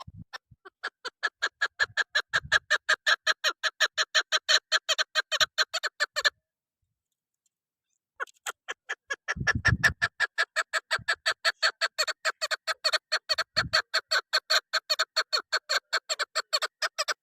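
Female chukar partridge calling in a rapid series of clucking notes, about six a second. One run builds up and lasts about six seconds, and after a two-second pause a second, longer run follows. A few low thuds sound under the calls.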